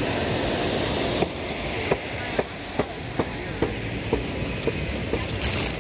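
Footsteps, about two a second, clicking over a steady outdoor background din.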